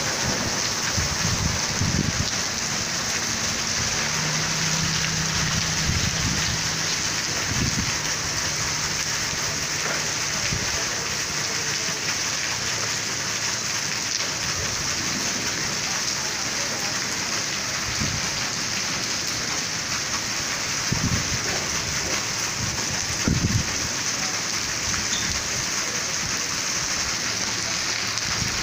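Heavy rain falling steadily, a dense even hiss of rain on the ground. A few short low thumps break through it here and there.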